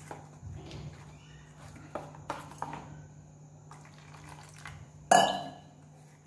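A metal spoon stirring gram-flour batter in a steel bowl, clinking against its sides, while water is poured in from a steel pot to thin the batter. About five seconds in there is a loud clank of steel utensils that rings briefly.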